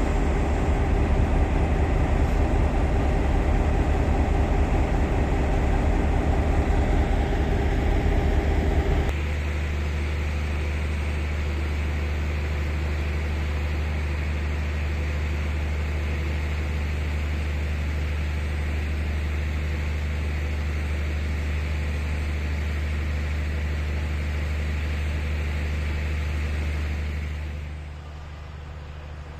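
Class 5E1 electric locomotives running with their blowers on: a loud, steady electrical hum and fan rush. Part of it cuts out abruptly about a third of the way in, and the rest drops away near the end.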